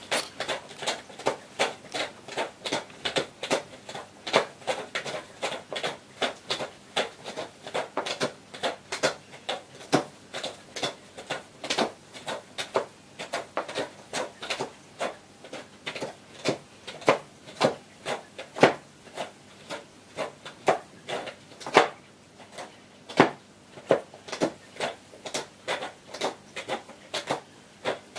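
A cat clawing at a scratching board, with rapid repeated raking strokes. The strokes come from a frail, elderly cat scratching with surprising vigour.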